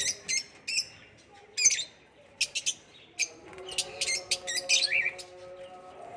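Lovebirds chirping: many short, shrill, high calls in quick runs, some close together, over a faint steady hum.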